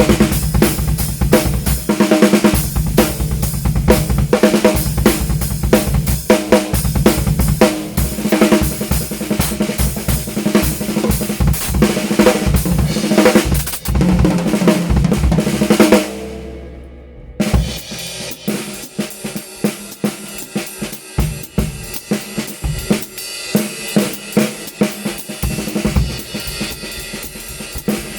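Drum kit played as a groove, featuring a handmade Thai snare with a shell hollowed from a single block of wood, along with bass drum, hi-hat and cymbals. About sixteen seconds in the playing stops and a drum rings out briefly. It then resumes softer, with lighter strokes.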